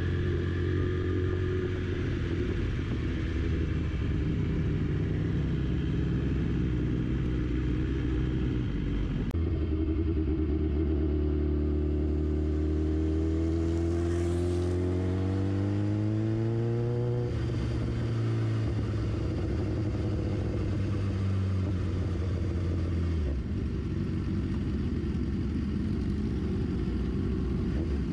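Sport motorcycle engine heard from the rider's own bike, running steadily, then climbing in revs for several seconds under acceleration before dropping at an upshift and running on steadily.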